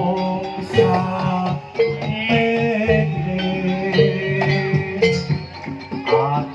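Live jaranan band music, an instrumental passage between sung lines, with a pitched note struck about once a second over held tones.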